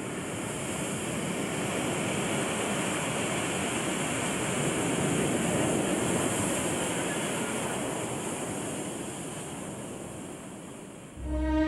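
Sea surf breaking and washing up the shore: a steady rushing that swells and then slowly fades. Bowed-string music comes in at the very end.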